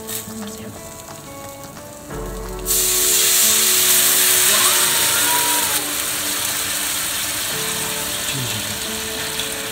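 Watery sauce poured into a hot frying pan of horse mackerel fillets hits the oil with a sudden loud sizzle about three seconds in. The sizzle eases a little a few seconds later and keeps going steadily.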